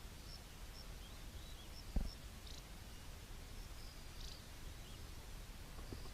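Faint, short, high-pitched chirps from a small animal, repeating irregularly over a quiet background, with one dull thump about two seconds in and a couple of faint clicks.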